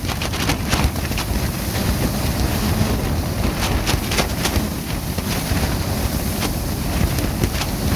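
Clear plastic tent sheeting flapping and crackling in a strong wind, with irregular sharp snaps several times a second over heavy wind rumble on the microphone.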